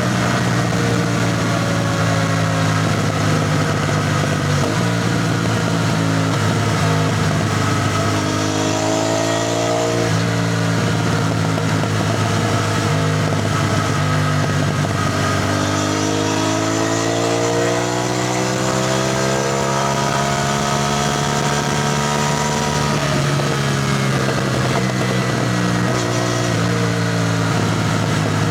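CFMoto 450NK's parallel-twin engine running under way. Its pitch rises as it pulls harder about eight seconds in, and again from about fifteen to twenty-three seconds, then settles back to a steady drone.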